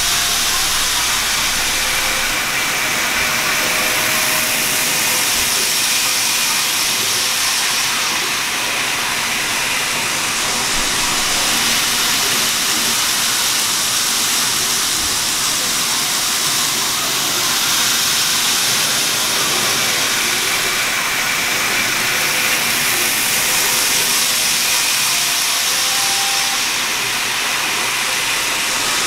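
TOMIX N gauge model trains, a Keisei AE Skyliner set and a JR 169 series set, running on plastic viaduct track: a steady whirring, rolling hiss of small motors and wheels on rail, with a faint motor whine that rises and fades now and then.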